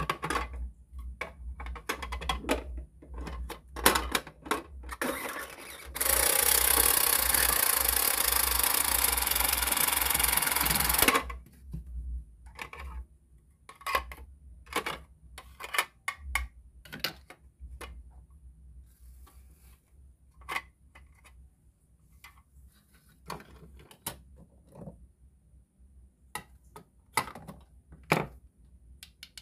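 Plastic toy kitchen pieces (toy bread, a toy toaster, a plate and small toy food) being handled, with many short clicks, taps and knocks. About six seconds in, a steady whirring hiss starts, the loudest sound, and it cuts off suddenly about five seconds later.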